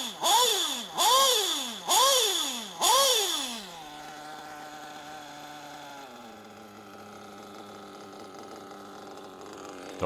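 Nitro RC engine blipped four times in quick succession, each blip a sharp rise and fall in pitch, then settling to a steady idle about four seconds in, with the idle dropping lower around six seconds in. A metallic grinding runs under the engine note, like sand in the engine, almost as if a drivetrain were turning: the sign of a worn-out rear bearing.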